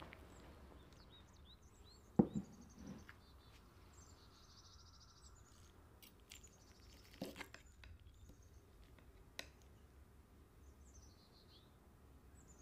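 Small birds chirping in short repeated trills, with a few soft knocks, the loudest about two seconds in.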